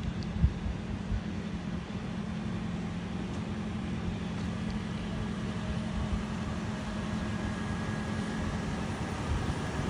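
Street traffic noise: a steady low rumble with a constant hum, a single thump just after the start, and a faint steady high tone coming in about halfway through.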